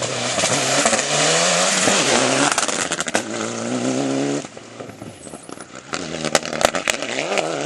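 Rally car engine at high revs as the car slides past on a loose dirt stage, with a noisy rush of dirt and gravel thrown from the tyres. The engine note climbs, then drops sharply about four and a half seconds in, leaving a fainter, falling engine note with a few sharp clicks of stones near the end.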